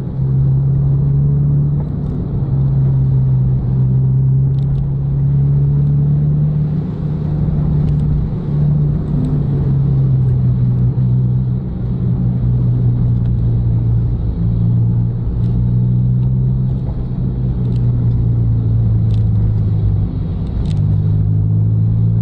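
Car engine and road noise heard from inside the cabin of a car driving on a wet road. The engine note holds steady, dips a little in pitch partway through and comes back up near the end.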